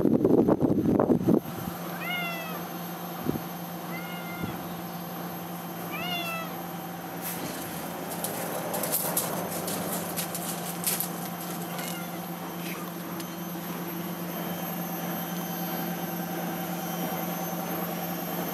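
Tabby cat meowing three times, about two seconds apart, each call rising and then falling in pitch. A loud noisy rush about a second long comes just before the first meow, and scattered clicks follow a few seconds after the last.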